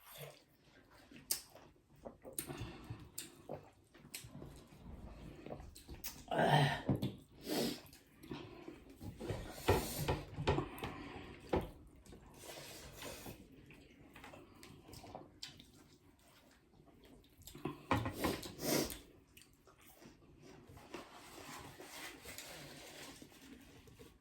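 Wet close-up eating sounds: chewing, smacking and slurping a meal of dhido and chicken curry, with many small irregular clicks. Louder clusters come about six seconds in, around ten seconds, and again near eighteen seconds.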